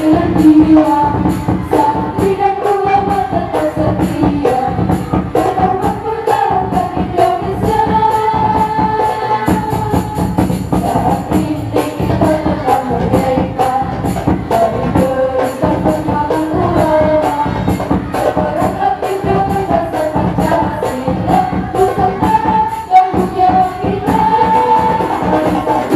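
Al-Banjari ensemble: young women's voices singing together into microphones over a fast, steady beat of hand-struck frame drums (terbang).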